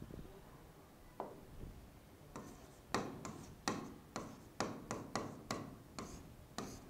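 Pen writing on an interactive whiteboard screen: one tap about a second in, then a quick run of about a dozen short sharp taps and scrapes as a word is written.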